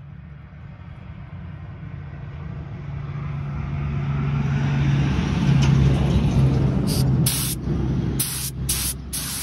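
A low engine-like rumble swells to a peak about halfway through and then eases off. Near the end a gravity-feed paint spray gun gives about five short bursts of air hiss.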